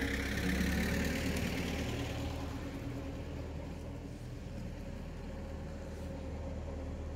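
Farm tractor engine running as the tractor drives past on its way to plow a field, a steady low drone. It is loudest in the first two seconds, then settles lower.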